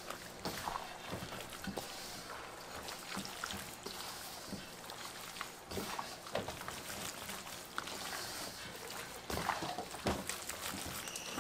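Raw chicken pieces being tossed and squeezed by hand in coating powder and batter in a stainless steel bowl: irregular wet squelches with soft knocks against the metal.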